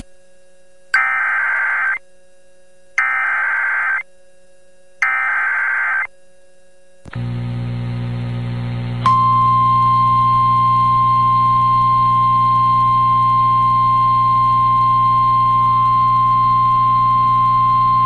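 NOAA Weather Radio emergency alert: three one-second bursts of warbling SAME header data, about a second apart, then a radio hum. About nine seconds in comes the steady single-pitched 1050 Hz warning alarm tone, which signals that a warning is about to be read, here a severe thunderstorm warning.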